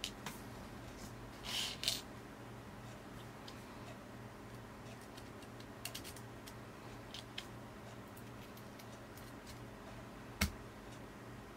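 Small clicks and a brief scrape from handling a smartphone and its metal SIM card trays, with one sharper click near the end as a tray is pushed into the side of the phone, over a faint steady low hum.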